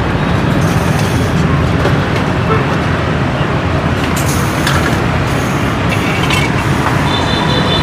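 Steady, loud street traffic noise: a continuous rumble of passing road vehicles, with indistinct voices mixed in.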